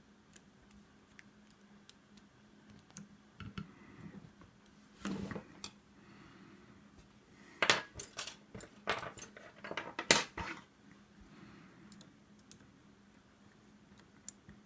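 Small metal lock-picking tools clicking and clinking: tension wrenches being handled and one tried in the keyway of a double-sided wafer gun lock, turning out too big. The clinks come in scattered clicks, with a busier, louder run about halfway through.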